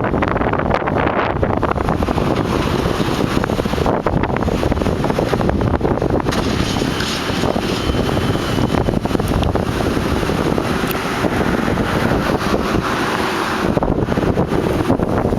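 Steady wind buffeting the microphone, over the continuous running of demolition machinery.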